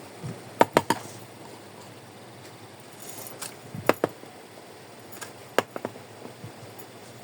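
Small hard plastic miniature kitchen toy pieces clicking and tapping as they are handled and set down, in a few quick clusters of sharp clicks.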